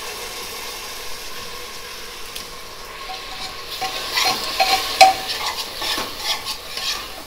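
Grated tomato sizzling in hot oil with fried onion and ginger-garlic paste in a pressure cooker, being stirred. The stirring scrapes and knocks on the pot more often in the second half, with one sharp clack about five seconds in.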